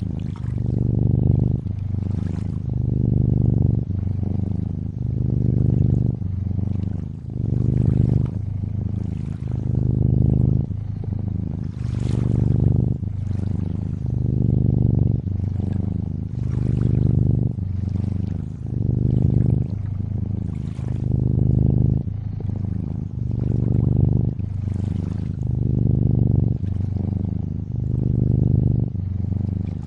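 Cat purring: a steady low rumble that swells and eases with each breath, roughly every one and a half to two seconds. Gentle water trickling and lapping runs underneath.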